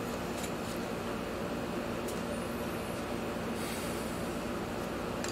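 Steady mechanical room hum, like a ventilation or air-conditioning unit, with a few faint light clicks and a brief rustle of handling about three and a half seconds in.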